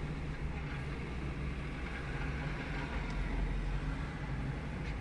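Steady low hum inside a stationary car's cabin, with no music playing.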